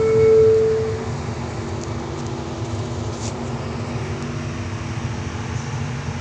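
Kelana Jaya Line LRT train running on elevated track, heard from inside the carriage: a steady rumble and running noise. A steady tone sounds during about the first second, then fades out.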